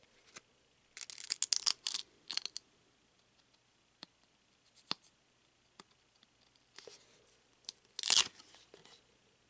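Old trading cards stuck together being peeled apart, a crackling, tearing sound. There is a longer cluster about a second in and a shorter, sharp burst near the end, with a few light clicks of card edges in between.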